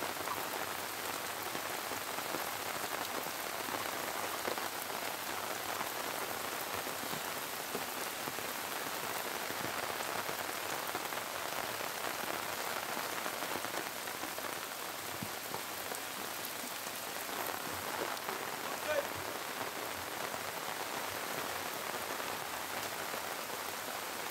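Heavy rain falling steadily, a dense even hiss, mixed with muddy floodwater running over the road.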